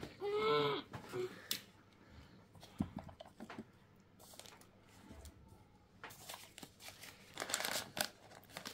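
Packaging being handled during an unboxing: rustling and crinkling with scattered small clicks, growing into a denser stretch of crinkling near the end. A short voiced exclamation comes right at the start.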